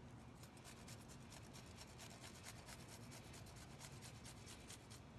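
A peeled garlic clove grated on a fine handheld rasp grater: a quick run of faint, short scraping strokes.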